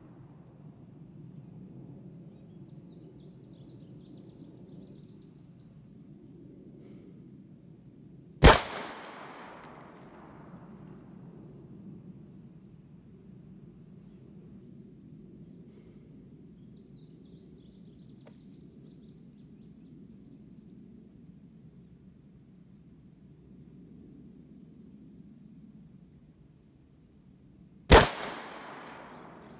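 Two single shots from an AR-15 rifle in 5.56, each a sharp crack with a trailing echo, one about eight seconds in and the other near the end, fired slowly as part of a five-shot group while breaking in the new barrel. A steady high insect trill runs underneath.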